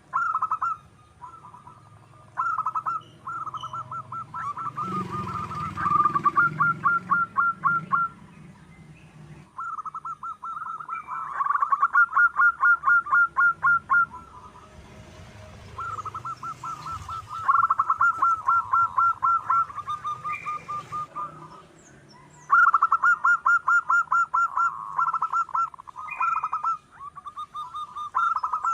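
Zebra dove (perkutut) calling: runs of rapid, pulsed cooing notes, each run a few seconds long with short pauses between.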